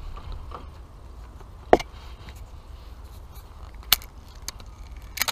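A few sharp clicks, one near two seconds in, one about four seconds in and a quick pair near the end, from a cheap spinning reel being worked by hand, over a low steady rumble.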